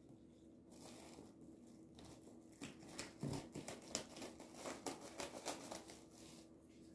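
Black plastic garbage bag crinkling as it is handled and snipped with scissors: faint, irregular crackles, thickest in the middle few seconds.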